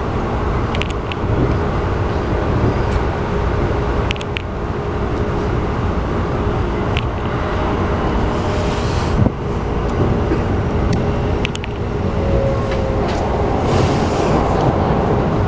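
Running noise heard inside a Keikyu New 1000 series electric train car (Toyo IGBT-VVVF inverter): a steady rumble of wheels on rail with a low drone, broken by scattered sharp clicks from the track.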